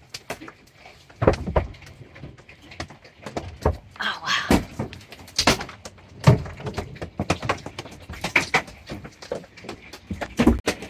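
Hailstones banging on the roof of a truck camper, heard from inside: an uneven string of hard knocks and thuds, some much louder than others.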